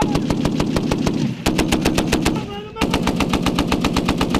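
M2 .50-calibre heavy machine gun firing long automatic bursts at about ten shots a second, with brief breaks about a second and a half in and again near three seconds.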